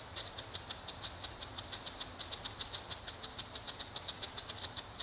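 Lesli Blitzturm strobe ground firework burning, its strobe composition giving a rapid, even series of sharp pops, about seven or eight a second, one with each flash.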